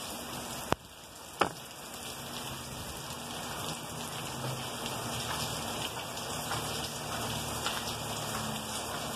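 Heavy rain falling steadily. Two sharp clicks sound about a second in.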